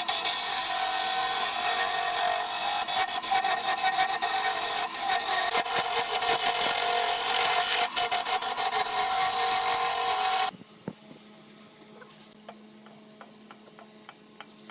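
Wood being cut or scraped on a wood-turning lathe: a loud, steady hissing rasp with a faint running tone beneath and small ticks. It cuts off suddenly about ten seconds in, leaving a faint low hum and light clicks.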